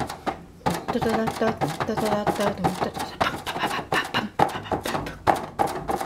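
Fingertips drumming on plastic cling wrap stretched tight over a glass bowl: quick, irregular taps, several a second, in a playful rhythm.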